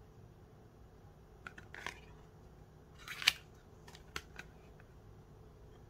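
Tarot cards being handled: a few light clicks and two short swishes of a card sliding against the deck, the louder one about three seconds in.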